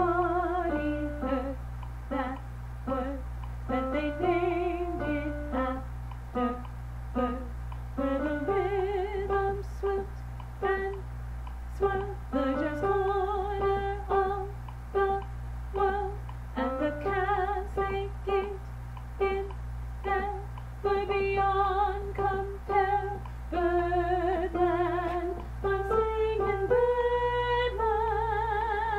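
A woman singing the soprano 2 line of a jazz choral arrangement alone, in short, separated notes with vibrato on the held ones and a long held note near the end. A steady low hum runs underneath.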